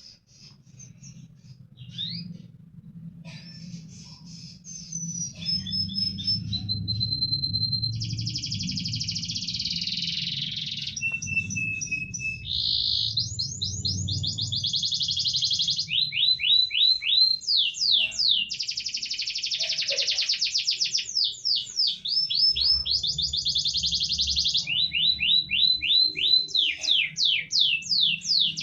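Domestic canary singing a long song of rapid trills, runs of quickly repeated sweeping notes and a few steady whistled notes; it starts softly and becomes loud after several seconds.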